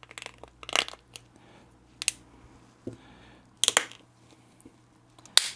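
Sharp clicks of a plastic prescription lens being pressed and clipped into the frame of Ray-Ban Meta smart glasses. There are four clicks about a second and a half apart, the loudest near the end.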